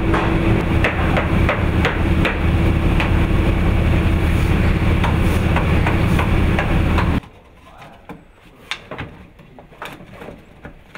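Steady drone of the shop's diesel engine and line-shaft pulleys, with repeated sharp wooden knocks and clacks as steamed bentwood slats are set and pressed into a peg-lined bending form. About seven seconds in the drone cuts off suddenly, leaving a quiet room with a few light wooden taps.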